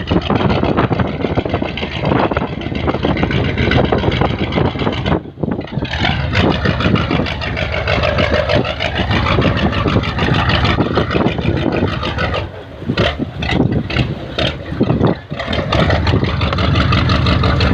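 Boat engine running steadily and loudly at sea.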